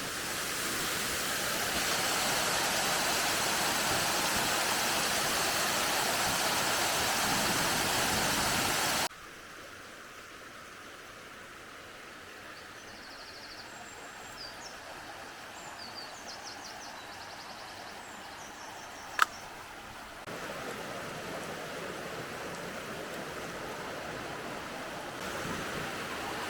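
Rushing water of a forest burn and its waterfall. The first third is loud; it cuts off sharply to a quieter stretch with faint high chirps and a single click, and the rushing water comes back at a moderate level for the last few seconds.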